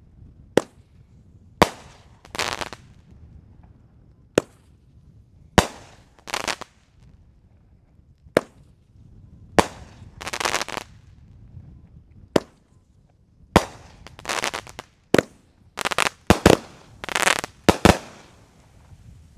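A three-minute consumer firework cake firing shot after shot: sharp reports every second or two, many of them followed by a longer burst, coming faster and closer together near the end.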